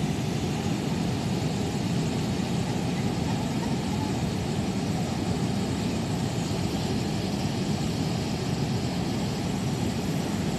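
A steady low rumbling noise with no distinct events in it.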